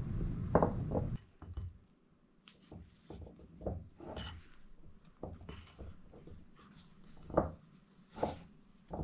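Wooden spoon stirring flour into a sticky yeast dough in a glass mixing bowl: scattered scrapes and knocks of the spoon against the bowl, the loudest one near the end. A low rushing noise stops about a second in.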